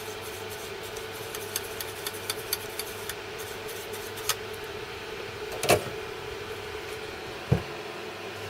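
Soldering fume-extractor fan running with a steady hum. Small clicks and taps of tools being handled on the workbench, with a louder clack about five and a half seconds in and a thump near the end.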